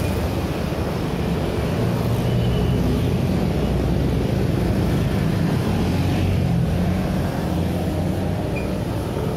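Busy city-road traffic of motorcycles, scooters and cars passing close by, a continuous engine rumble.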